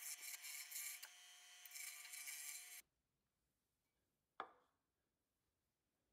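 Lathe tool cutting into the foot of a spinning silver maple goblet: a hissing scrape of shavings over a steady faint hum. It cuts off suddenly a little under three seconds in. Near silence follows, broken by a single sharp wooden knock as the goblet is set down on the lathe bed.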